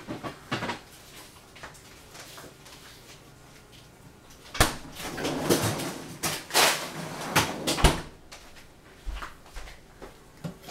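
Kitchen handling sounds: a sharp knock a little before halfway, then about three seconds of clattering knocks and bangs, like things being moved about and a cupboard or drawer being worked.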